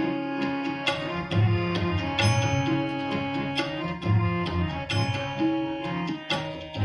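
Instrumental interlude of a harmonium playing a reedy, held melody over tabla strokes, with no singing.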